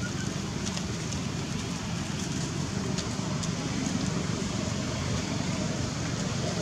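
Steady outdoor background noise: a low rumble under an even hiss, with a few faint ticks.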